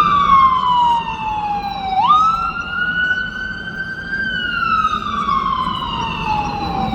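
Emergency vehicle siren wailing. Its pitch falls slowly, snaps back up about two seconds in, holds briefly, then falls slowly again.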